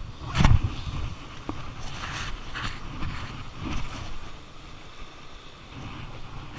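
Rough sea surf washing and breaking against the rocks just below, with wind buffeting the microphone. The surf sound rises in short surges, the strongest and lowest about half a second in.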